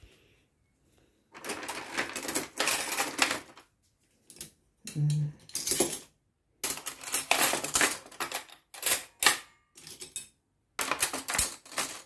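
Stainless steel spoons and other cutlery clinking and clattering as they are pulled from a dishwasher cutlery basket and dropped into a plastic drawer organiser. The clatter comes in several quick runs separated by short pauses.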